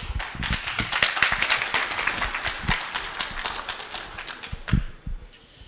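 Audience applauding, thinning out after about four and a half seconds, followed by a single thump.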